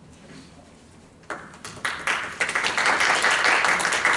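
A small audience clapping by hand, starting about a second in and quickly building to steady applause.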